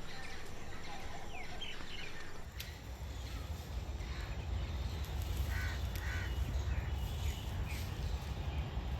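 A few faint crow caws over a low, steady rumble of ambience.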